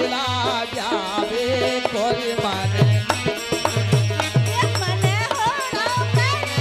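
Live Indian devotional folk music: a singer's wavering, ornamented melody over a drum's regular low strokes, with the clatter of a hand-shaken wooden frame of metal jingles.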